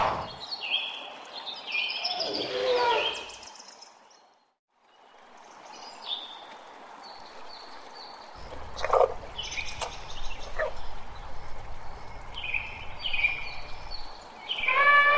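Outdoor ambience with small birds calling in short, high chirps. A low steady rumble comes in about halfway and a few sharp clicks are heard near the middle. The sound drops out completely for about a second around four seconds in.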